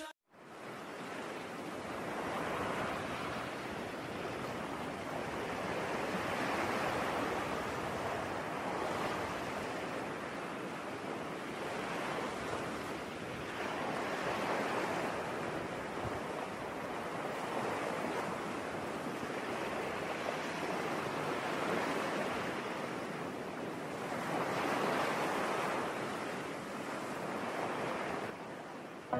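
Ocean surf breaking on a beach, a steady wash of waves that swells and eases every few seconds.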